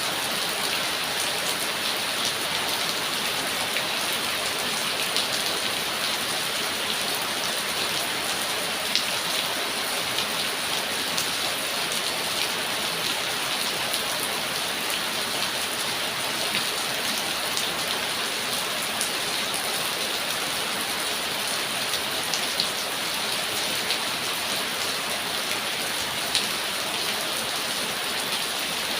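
Steady rain falling, a dense even hiss with scattered sharper drop ticks.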